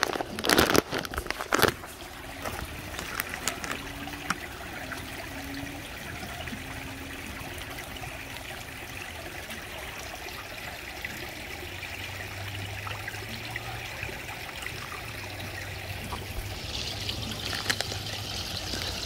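Water trickling and splashing steadily into a small fish pond, kept circulating by its water pumps. A few knocks in the first two seconds, and a low hum comes in about halfway through.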